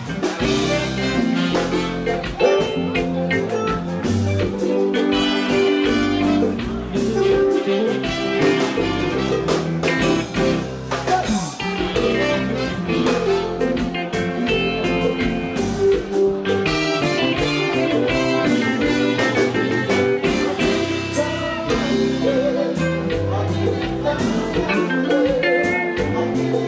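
Live kompa band playing: guitar, bass and drums in a steady groove, with a male lead singer's voice coming in at times over the band.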